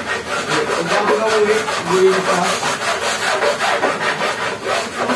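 Rough scraping or rubbing in rapid, repeated strokes.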